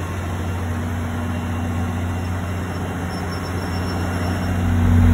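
Diesel locomotive engine running close by, a steady deep hum. It grows louder with more low rumble near the end.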